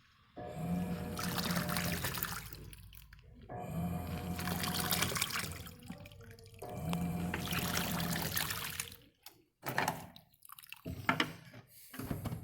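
Electrolux LTD06 top-load washing machine agitating a small load in little water: the motor hums and the water sloshes in three strokes of about two and a half seconds each, with short pauses between them. The strokes stop about nine seconds in, leaving a few faint clicks.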